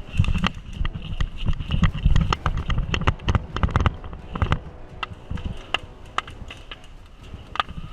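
Footsteps and gear knocking from an airsoft player on the move: rapid, irregular clicks and knocks over low thumping, heaviest in the first half and thinning out toward the end.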